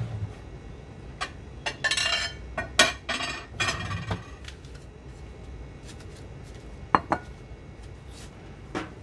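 Kitchenware clattering: a flurry of clinks and knocks of dishes and utensils for about three seconds, then a single sharp knock about seven seconds in as a white plate is set down on a wooden cutting board.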